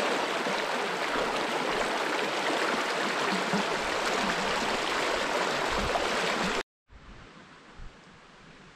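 Shallow river running fast over a rocky bed: a steady rush and babble of water. It cuts off abruptly about two-thirds of the way through, and a much quieter background follows.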